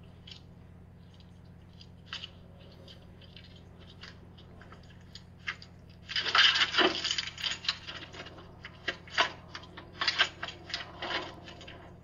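Crackly rustling and many sharp clicks picked up through a Ring doorbell camera's microphone, starting loud about halfway in, after a stretch of faint hiss and a few ticks.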